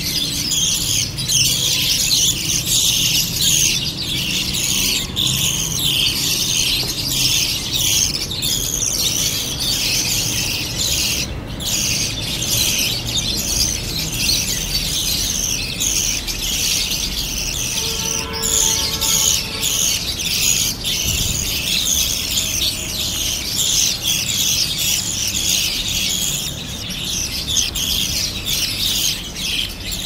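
Budgerigar chicks begging as they are hand-fed from a syringe: continuous, rapid, high chirping calls.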